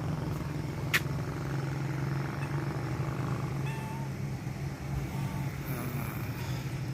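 Heavy rain falling steadily in a sudden downpour, a continuous hiss, over a low steady hum, with one sharp click about a second in.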